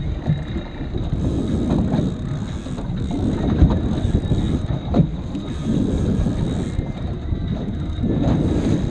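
Boat idling along slowly in gear: a steady low rumble of motor, water along the hull and wind buffeting the microphone, with a couple of sharp knocks about three and a half and five seconds in.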